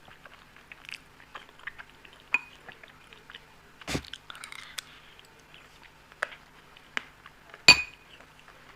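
Close-up chewing and eating of Indian sweets, with soft wet clicks and several sharp clinks, the loudest near the end.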